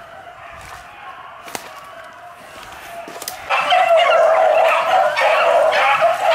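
Pack of beagles baying in chorus on a swamp rabbit, many voices at once. It is faint at first, then comes in loud and close about three and a half seconds in, the dogs running the rabbit by sight.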